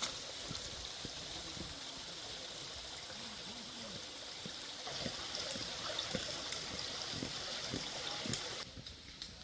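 Mountain stream running, a steady rush of water that cuts off suddenly near the end.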